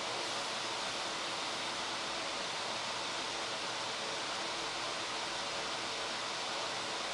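A steady, even hiss, brightest toward the high end, with nothing else standing out.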